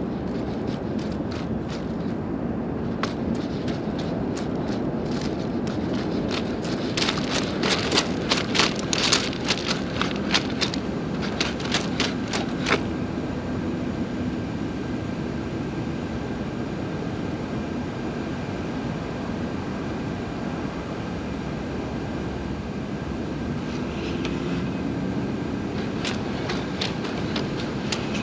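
Boston Dynamics Spot robot dog's feet clicking and scraping on loose rocks as it walks, in rapid runs of sharp ticks through the first half and again near the end as it comes close. Under them runs a steady low rumble.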